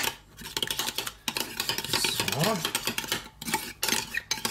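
Metal spoon stirring a thick mayonnaise-and-mustard sauce in a ceramic bowl, clicking and scraping rapidly against the bowl's sides.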